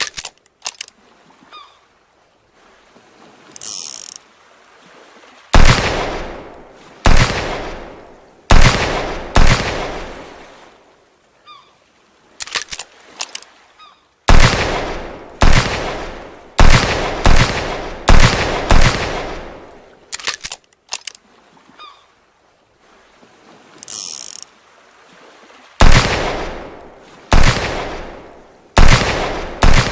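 Revolver gunshot sound effect: three volleys of shots, about four to six each and a second or so apart, every shot with a long ringing decay. Between the volleys come a few light clicks and a short high hiss.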